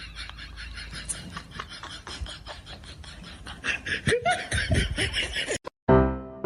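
Someone laughing in rapid, even bursts, rising into higher-pitched cries about four seconds in. The laughter cuts off suddenly, and loud piano chords start, struck about twice a second.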